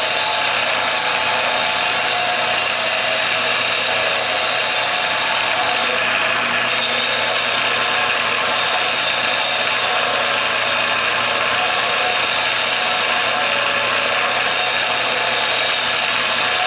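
Electric disc sander grinding the end of a steel pry bar against its abrasive disc, throwing sparks: a steady grinding hiss with a whine in it as the end is squared and rounded to a radius.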